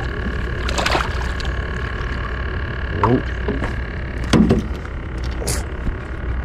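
A hooked bass splashing at the water's surface beside a small boat as it is reeled in and swung aboard, with a brief splash about a second in, over a steady hum.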